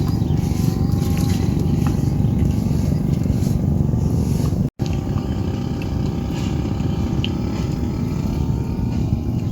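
Boat engine running steadily, a loud low rumble with a faint whine above it, briefly cut off about halfway through.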